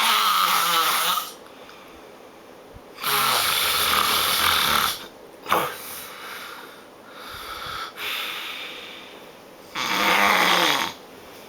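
A sleeping man snoring loudly: three long snores about three to seven seconds apart, with a weaker one between the second and third.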